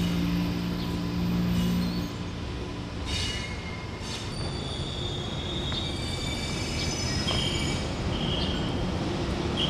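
Railway wheels squealing on curved depot track: a high metallic squeal that comes and goes from about halfway, roughly once a second near the end. Before it, a steady low hum of electric locomotives stops about two seconds in.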